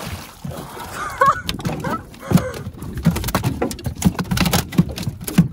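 A speared spangled emperor splashing at the surface, then flapping and slapping on the deck of an aluminium dinghy in rapid, irregular knocks.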